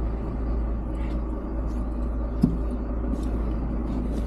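Low steady rumble inside a van's cabin as a person climbs into the driver's seat, with a single knock about halfway through.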